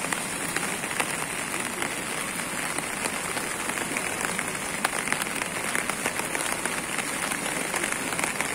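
Steady rain falling, with scattered close raindrop ticks, over the rush of a swollen, fast-flowing flooded river.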